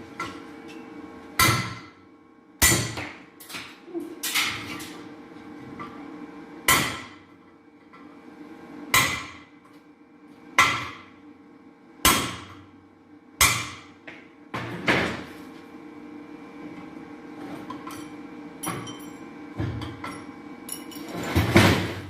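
Hammer blows on a cylinder head, knocking the old valve seats out: about a dozen sharp metallic strikes, one every second and a half to two seconds, each ringing briefly. There is a pause with only light clinks before one last blow near the end.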